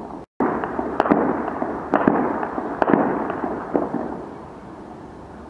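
Heavy distant celebratory gunfire: many shots fired into the air overlap into a dense, echoing crackle, with a few sharper, louder reports standing out. The sound cuts out for a moment near the start, and the firing thins out after about four seconds.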